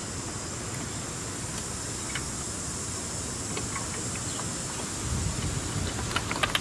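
Faint clicks and light rattles of a plastic wiring harness connector and sensor cable being handled and clipped in place, over a steady background rumble, with a quick run of sharper clicks near the end.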